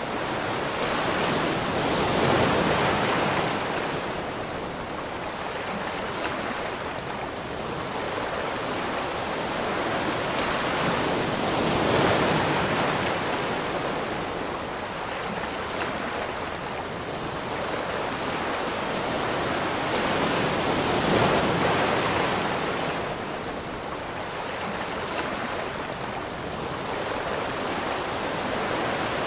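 Wind-driven waves on a lake breaking and washing onto a shingle shore, with gusting wind over it. The rush of water and wind swells and eases slowly over several seconds.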